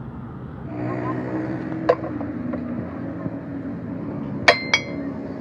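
Heavy steel parts of a truck fifth wheel coupling clinking against each other as they are handled: one clink about two seconds in, then two quick ringing clinks near the end.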